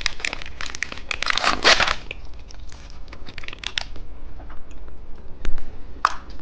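Plastic candy packaging crinkling and rustling as it is handled, dense in the first two seconds and then sparser, with a couple of sharp taps near the end.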